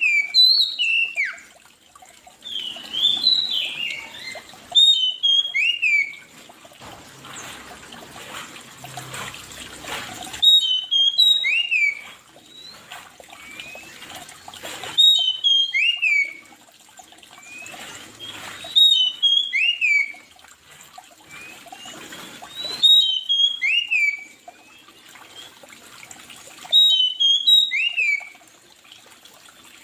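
A songbird singing the same short phrase of sharp whistled notes, each sweeping down in pitch, over and over about every four seconds. A faint steady hiss lies underneath.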